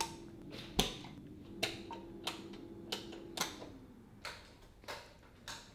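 Wall light switches clicked one after another, a row of sharp clicks about one every half second to second, as the room lights go off. A faint steady hum underneath drops in pitch about three and a half seconds in.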